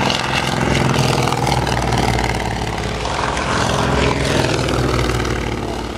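Single-engine propeller aircraft's piston engine running at high power close by, as on a take-off run and climb-out. It is a steady, deep drone that eases slightly near the end.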